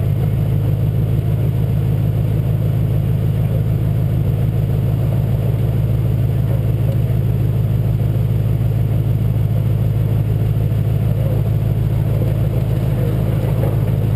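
Truck engine running steadily at low speed, heard through a camera mounted on the front of the truck.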